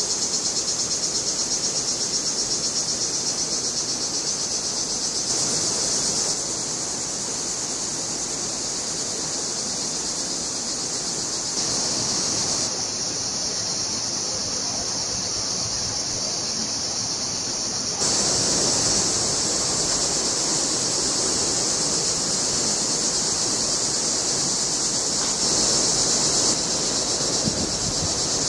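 A canyon stream running steadily over rocks, with a dense, high, pulsing insect chorus over it. The mix changes abruptly a few times.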